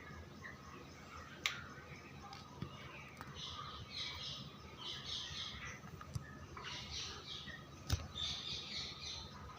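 A flock of broiler chickens calling, short squawks and chirps coming in bunches, with a faint steady hum and two sharp clicks.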